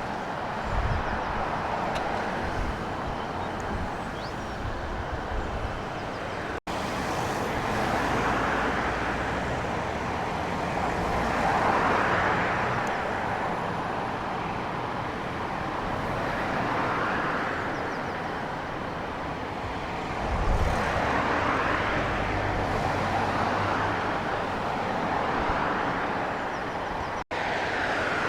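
Vehicles passing one after another, each swelling and fading over a few seconds, with the sound broken off sharply twice at edits.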